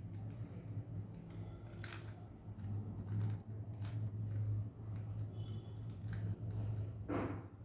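Plastic Rubik's cube being turned by hand: irregular clicks and clacks as its layers rotate, over a steady low hum.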